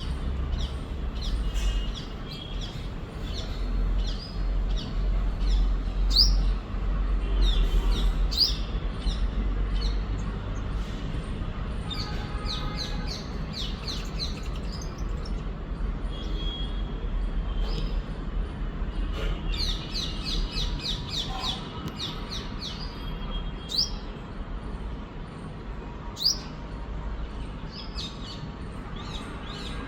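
Sunbird chirping: short, sharp, high-pitched notes repeated throughout, with a quick run of them about two-thirds of the way in. A low rumble sits underneath through the first half.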